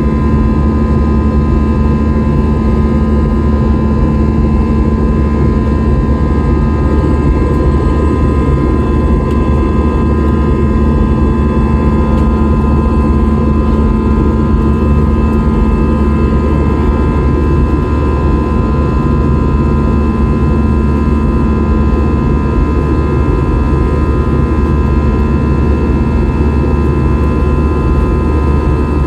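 Jet airliner's engines heard from inside the passenger cabin: a loud, steady drone with a heavy low rumble and several steady whining tones above it.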